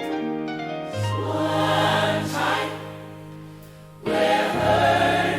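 Gospel-style worship music intro: a choir singing sustained wordless chords over a low bass, swelling fuller about four seconds in.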